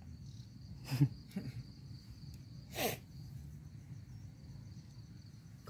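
Insects, likely crickets, chirping steadily in a high, thin drone. Two short human vocal sounds cut across it, one about a second in and a falling one with a burst of breath near three seconds.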